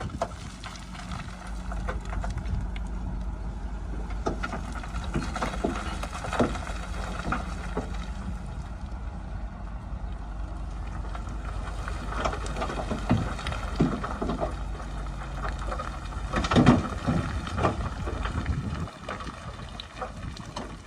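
Shantui bulldozer's diesel engine running steadily at work, with scattered metallic clanks and knocks, the loudest cluster about three-quarters through. The engine note drops off near the end.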